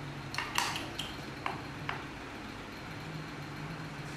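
A spoon clinking and scraping against a plate of food, about five sharp clinks in the first two seconds, over a steady low hum.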